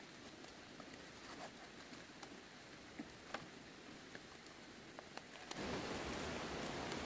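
Large leaves rustling as they are picked and handled, with a few crisp snaps of stems. About five and a half seconds in, a louder, steady rushing hiss takes over.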